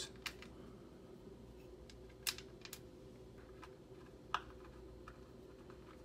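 Light, scattered clicks of a small screwdriver and screws as the logic board screws are driven into a Mac mini's aluminium housing, a handful of ticks with the sharpest about two and four seconds in, over a faint steady hum.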